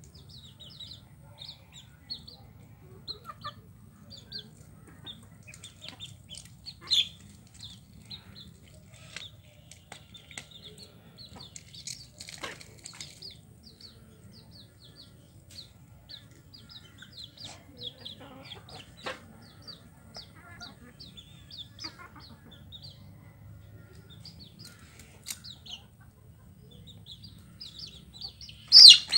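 Birds chirping steadily in short repeated calls, with a few sharp knocks and scrapes of a snakehead fish being cut on a boti blade; the loudest knock comes near the end.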